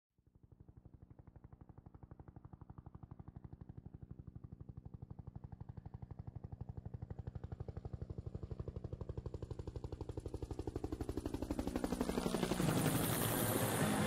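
Bell UH-1 Huey helicopter rotor blades beating with a rapid, rhythmic whop, growing steadily louder as it approaches. A rushing hiss swells in over the last couple of seconds.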